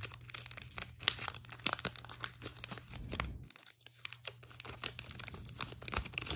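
Foil wrapper of a Pokémon trading card booster pack being torn open by hand, crinkling and crackling, with a brief lull a little past halfway.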